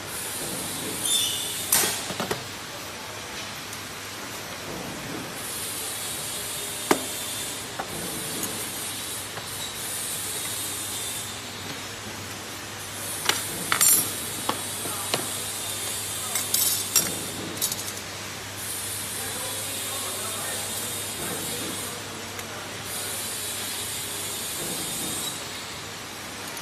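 Workshop sounds of metal tools and evaporator cores being handled on a workbench: scattered clinks and knocks, loudest about two seconds in and again around thirteen to seventeen seconds in. Under them run a steady hum and hissing that comes and goes in spells of a few seconds.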